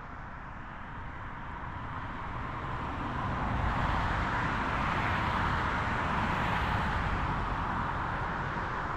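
A road vehicle passing, its tyre and engine noise swelling over a few seconds and then holding steady.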